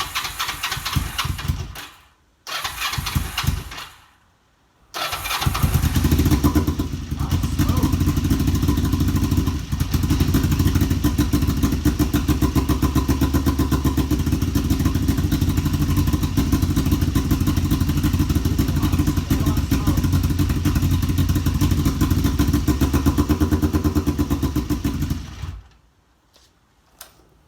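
Kawasaki EX500 parallel-twin motorcycle engine making two short starting attempts, then catching about five seconds in. It runs with an uneven, pulsing beat for about twenty seconds before shutting off. This is a rough idle on its first start after sitting for a couple of years.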